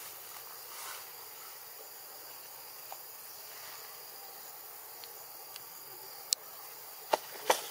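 Steady chorus of insects, a constant high buzzing hiss, with a few sharp clicks or snaps near the end.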